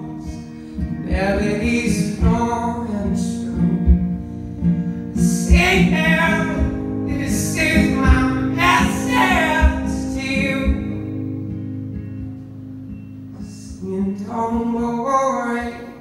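A young man singing in a high, soft voice while strumming his acoustic guitar, live. Sung phrases come and go over steady strumming; for a few seconds near the end the guitar plays alone before a last phrase.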